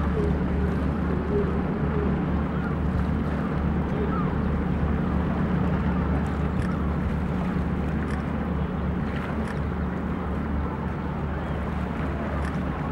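Waterfront ambience: a steady low engine drone from boat traffic, with wind and water noise.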